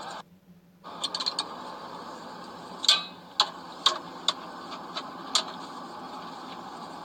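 Hand ratchet wrench tightening a car starter motor's mounting bolts. A cluster of quick clicks comes about a second in, then single sharp clicks roughly every half second, over a steady background hiss.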